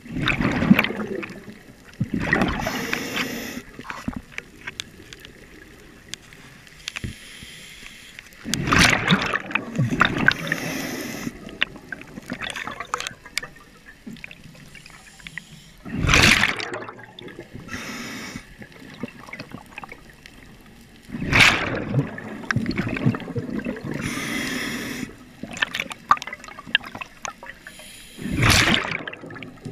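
Scuba diver breathing through a regulator: loud bursts of exhaled bubbles gurgling past every several seconds, with the regulator's fainter hiss between them.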